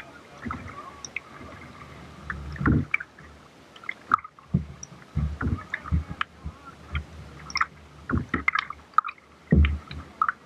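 Kayak paddling: paddle blades dipping and splashing at irregular intervals, with water sloshing against the boat.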